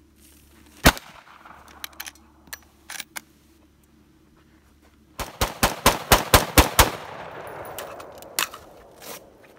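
A single rifle shot about a second in, then a rapid string of about ten semi-automatic shots from an AR-15-style rifle in under two seconds, about five seconds in, with a long echo fading after them. Two fainter reports come near the end.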